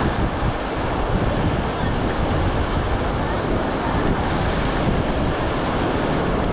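Whitewater rapids of a river at high water rushing loudly and steadily around an inflatable raft.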